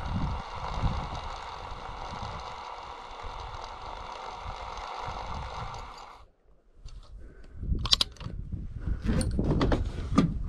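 A conventional fishing reel's spool spinning freely as line runs out, a steady whir that stops abruptly about six seconds in. Then come scattered clicks and knocks of handling the rod, reel and boat rail.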